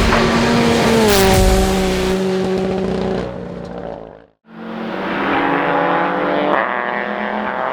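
Rally car engine at high revs, with sharp bangs near the start and about a second in, then dropping in pitch and fading as the car goes by. About four seconds in the sound cuts out, and another rally car's engine comes in, getting louder as it approaches.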